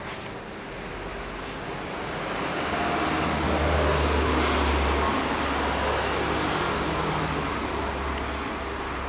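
A road vehicle driving past: a rush of engine and tyre noise that swells to a peak about four seconds in and then slowly fades, over a steady low engine hum.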